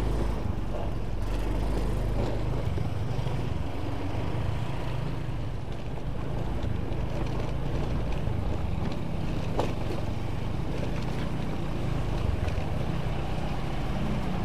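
Motorcycle engine running steadily at low road speed, with wind buffeting the microphone.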